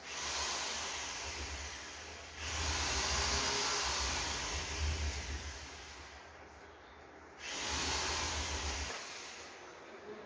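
Rushing air noise with a low rumble buffeting the microphone, like wind, coming in three surges and dying away near the end.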